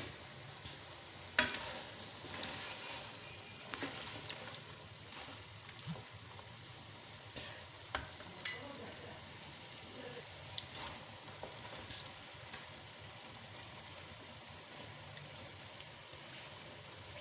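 Mutton curry sizzling in a kadai while a wooden spatula stirs and scrapes through the meat, with a steady hiss and a few sharp knocks against the pan, the loudest about a second and a half in.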